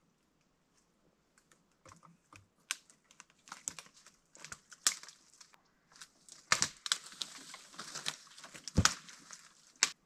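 Irregular close crackling and rustling: a scatter of sharp clicks, with a few louder cracks in the middle and near the end.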